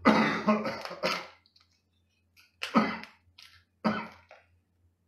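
Three short bursts of throat and mouth sounds from a man eating crawfish: a longer one at the start, then two brief ones about a second apart near the middle and later on.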